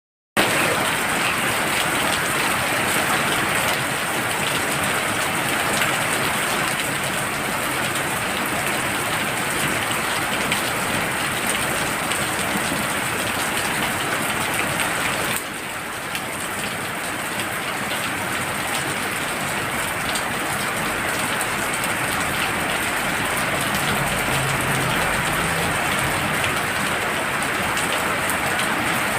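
Heavy rain falling steadily in a dense, even hiss of drops. The level drops slightly and suddenly about halfway through.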